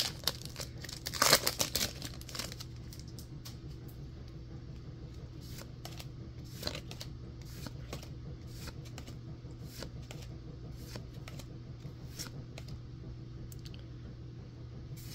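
Foil wrapper of a Pokémon booster pack torn open, with crinkling, for about the first two and a half seconds. After that come scattered soft clicks of trading cards being slid from the back of the stack to the front, over a steady low hum.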